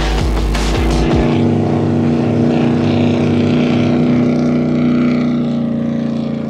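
Sport powerboat engine running at a steady drone on the water. Some heavy thumps in the first second fall away, then the engine holds one steady pitch, easing off slightly near the end.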